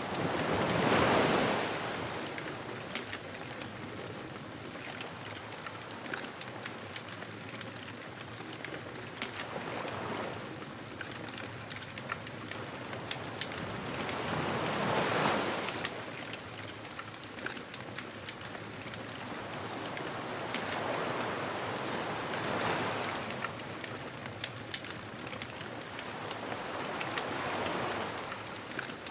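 Ocean waves washing ashore in slow swells, one about every five or six seconds, with a wood bonfire crackling throughout.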